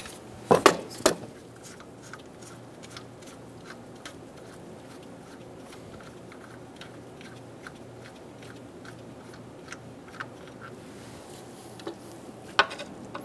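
Scattered metallic clicks and ticks of a wrench working on a Subaru camshaft sprocket bolt as the cam is turned back into time, with a couple of sharper clicks at the start and near the end.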